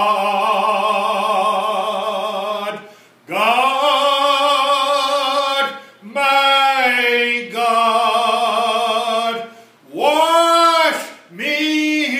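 A man singing a hymn solo and unaccompanied, holding long notes with vibrato in phrases of about two to three seconds, separated by short breaths.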